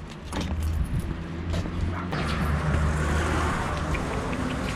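A passing car on the street swells and fades over a steady low rumble, with a few footstep clicks in the first couple of seconds.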